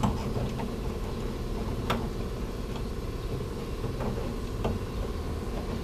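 A few light clicks and taps from a sheet of foil-backed butyl sound-deadening mat (Dynamat Extreme) being pressed and rolled onto the inside of a van's steel door skin, the sharpest about two seconds in, over a steady low hum.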